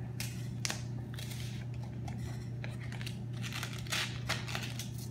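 Paper crinkling and tearing in many short rustles and rips as a child opens a wrapped present by hand, over a steady low hum.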